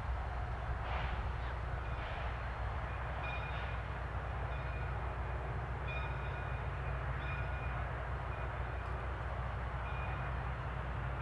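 Baldwin 0-6-0 steam locomotive working with its train, a steady hiss of venting steam over a low rumble. A few slow, surging chuffs come in the first couple of seconds, then the sound evens out.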